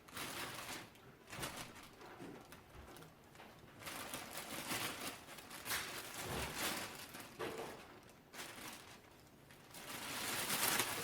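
Plastic bag rustling and crinkling in irregular swells as it is handled and held open.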